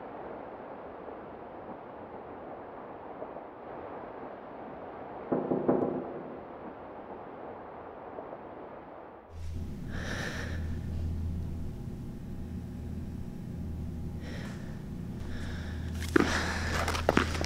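Steady wind noise with a short voiced breath about five seconds in. About nine seconds in it changes to a low steady hum with heavy breathing, followed near the end by a run of sharp taps.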